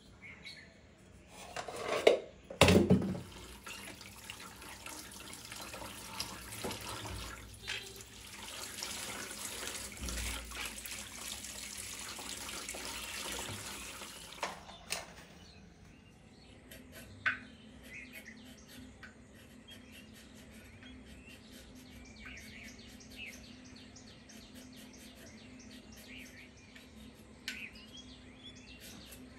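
Kitchen tap running into a stainless steel sink while raw mangoes are rinsed by hand, after a couple of loud knocks about two seconds in. The water stops about halfway through, leaving a low hum and scattered faint clicks.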